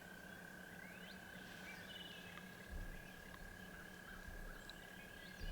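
Woodland birds chirping with short rising notes over a steady faint high tone, with a brief low rumble a little under halfway through.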